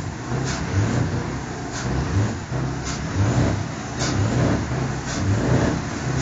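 Scania truck's diesel engine running, its note swelling and fading over and over as if being revved.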